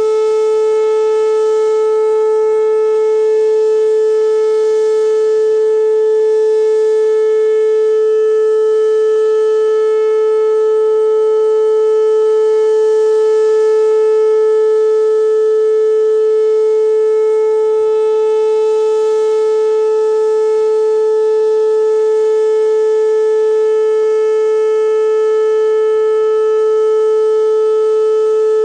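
Whelen WPS-2809 electronic outdoor warning siren sounding a loud steady tone that holds one pitch throughout, with a strong overtone series above it.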